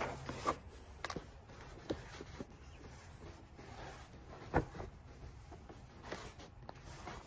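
Unpacking a boxed cedar raised garden bed kit: cardboard packaging and wooden boards being handled, giving scattered knocks, taps and rustles, with one sharper knock about four and a half seconds in.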